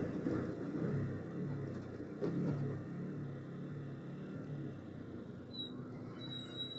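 Motorcycle engine running in slow traffic, its note rising and falling with the throttle, under wind rumble on the microphone. A brief high whistling tone comes twice near the end.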